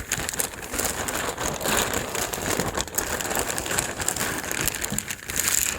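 Plastic packaging crinkling and rustling as it is handled, a continuous run of small crackles.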